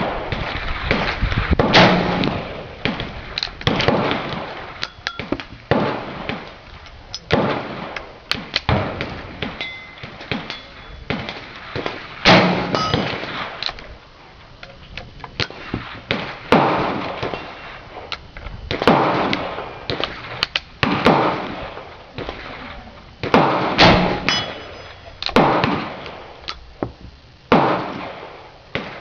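Irregular series of gunshots, one every second or so, each with a decaying echo; several are followed by a short metallic ring.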